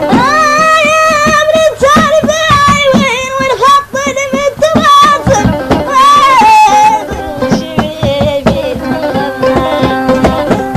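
Mauritanian Moorish (ashwar) music: a singer's ornamented, gliding vocal line over plucked strings and a steady hand-drum beat.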